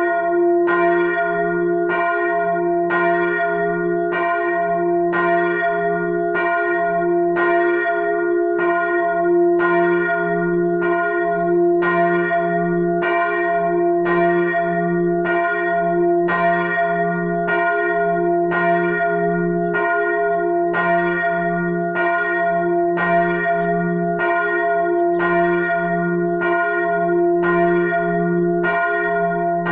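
The large church bell, Glocke 1, tuned to f', swinging and ringing alone. Its clapper strikes evenly, about once a second, over a steady low hum.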